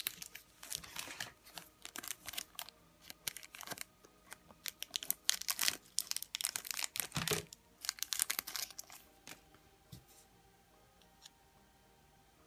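Thin clear plastic wrapper crinkling and tearing as a small toy part is pulled out of it by hand, in dense crackling bursts that die away about nine seconds in, followed by a few light clicks.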